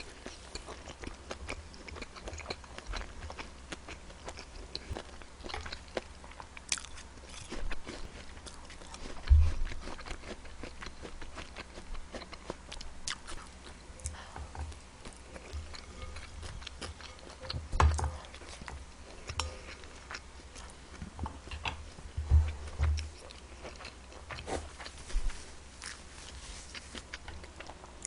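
Close-miked eating: crunchy bites and chewing of a mayonnaise-dressed salad with apple, with scattered small clicks and a few low thumps.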